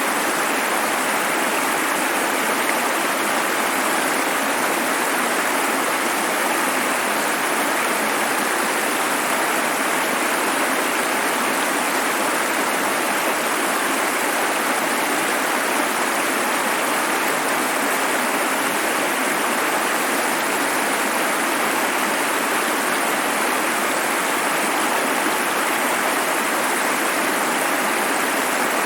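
Running water: a steady, even rush of water with no breaks or changes.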